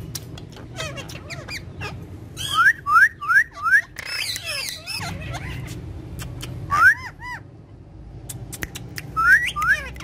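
Alexandrine parakeets calling: loud rising squawks in short runs of two to four, with softer chatter and clicks between them.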